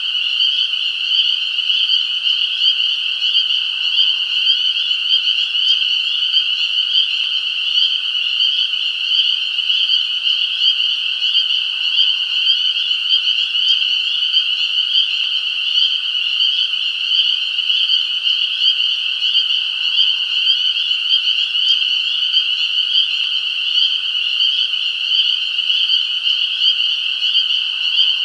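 A dense chorus of many frogs calling at once, a steady, high-pitched trilling wash with no pauses.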